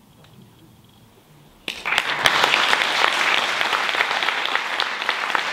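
An audience applauding: after a quiet start, many hands break into clapping all at once about a second and a half in and keep going.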